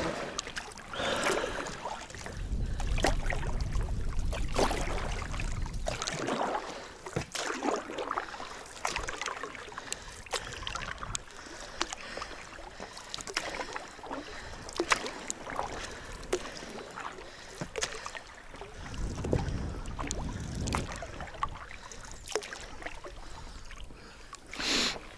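Water splashing and light knocks around an inflatable boat being paddled or pushed along, with a low wind rumble on the microphone a couple of seconds in and again near the end.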